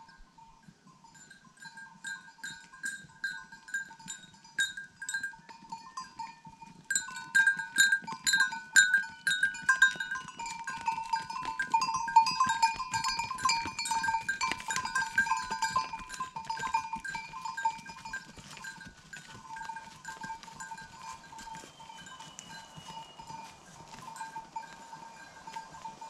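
Cuckoo nestlings begging: rapid repeated calls that build up about a quarter of the way in, are loudest in the middle, then ease off. Bell-like background music plays underneath.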